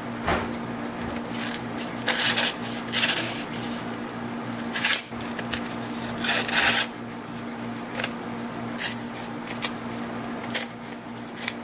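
SOG Auto Clip folding knife's blade making a series of short scraping, slicing strokes, several a few seconds apart, over a steady low background hum.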